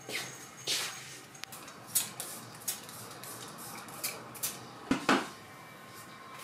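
Trigger spray bottle misting flowers and a houseplant: a series of short hissing spritzes, then a light knock about five seconds in.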